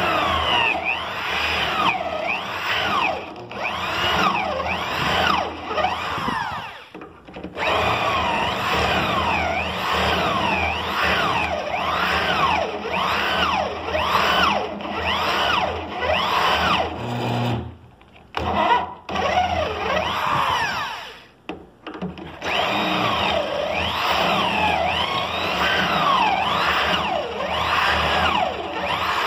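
Electric drill boring a row of holes through a lock-mortise drilling jig into the edge of a cabinet panel, its pitch rising and falling again and again as the bit bites and frees. It stops briefly three times, about 7, 18 and 21 seconds in, as the bit is moved to the next hole.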